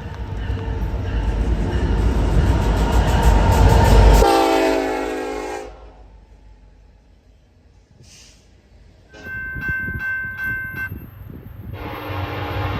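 Nathan K5LLA five-chime train horn sounding over the heavy rumble of a passing train. After a brief quiet gap come two more horn chords, the last one held to the end.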